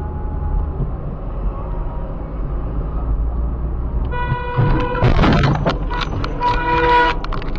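Steady car road and engine noise inside the cabin. About four seconds in, a car horn starts honking in repeated short blasts. About a second later comes a loud noisy crash as the car hits something and the dash cam is knocked askew, with more horn blasts after it.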